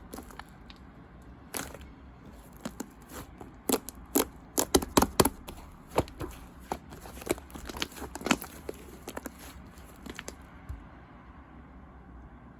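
Fluffy slime being squished and poked by hand, giving a run of sharp, irregular crackles and pops. The pops are thickest about four to five seconds in and die away near the end.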